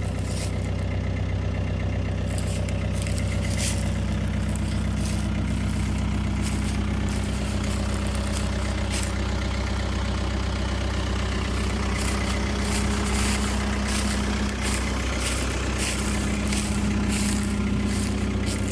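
Skid steer engine running steadily, with scattered clicks and knocks over it, more frequent in the second half.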